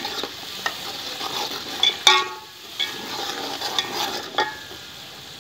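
A steel ladle stirring and scraping through onion, spice and tomato masala frying in a large aluminium pot, over a steady sizzle. The ladle knocks against the pot now and then, loudest about two seconds in, with a short metallic ring.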